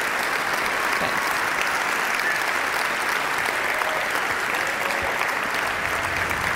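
A large audience in an auditorium applauding steadily.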